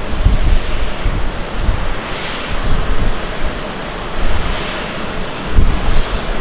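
Twin turbofan engines of a Japan Airlines Boeing 787-8 on its takeoff roll: loud, steady jet noise with an uneven low rumble that swells and fades every second or so.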